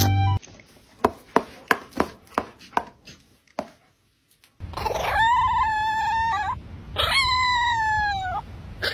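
Small dog howling: two long, high howls of about a second and a half each, each holding its pitch and dropping at the end, over wind rumble on the microphone. Before the howls comes a run of about eight sharp clicks that die away.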